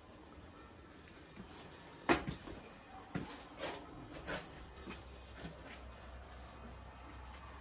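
Knocks and clunks of hands and tools handling parts of an air conditioner unit: one sharp clunk about two seconds in, then three lighter knocks over the next two seconds. A faint low steady hum sets in about five seconds in.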